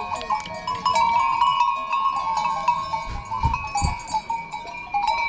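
Bells on a penned group of goats clanking and ringing as the animals shift about, overlapping ringing tones with many small knocks. A few short low thumps come about three seconds in.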